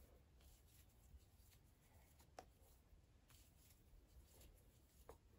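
Near silence with faint, scattered soft ticks and rustles of a crochet hook working thick cotton string while stitching double crochets. Two ticks stand out a little, about two and a half seconds in and near the end.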